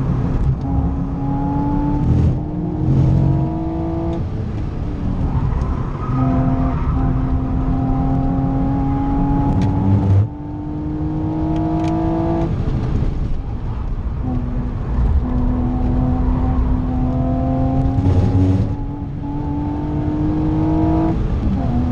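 BMW Z4 3.0i's M54 straight-six engine heard from inside the cabin under hard acceleration on track. Its pitch climbs slowly through about four long pulls, each cut off by a sudden drop as the driver shifts gear or lifts for a corner.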